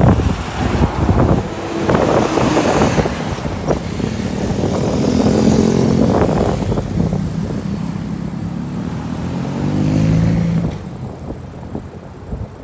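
A motor vehicle's engine passing close by, its note shifting as it goes and dying away about ten seconds in, over wind buffeting the phone's microphone.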